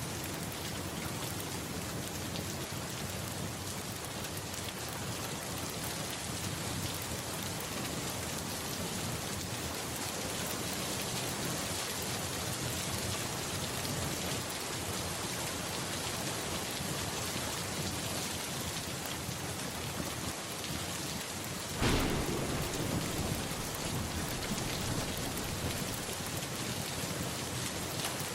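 Steady rain falling, an even hiss. About 22 seconds in, a sudden thunderclap breaks in and rolls on as a low rumble under the rain.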